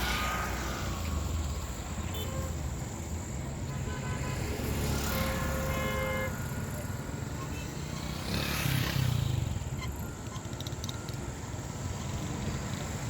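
Steady outdoor background noise, a low rumble with a hiss, swelling twice, with a short horn-like tone about five seconds in.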